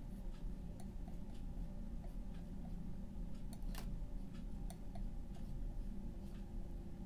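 Faint small clicks and taps at irregular intervals, one a little louder about halfway through, over a steady low hum.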